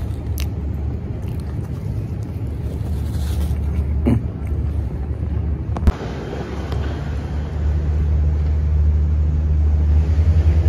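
Low, steady engine rumble of street traffic, growing louder in the second half, with two short clicks about four and six seconds in.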